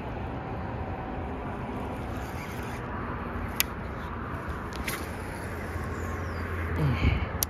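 Steady low rumble of road traffic, with sharp clicks from a baitcasting reel and rod as the lure is reeled in and recast: two about three and a half and five seconds in, and one more at the very end. A short burst of handling noise comes just before that last click.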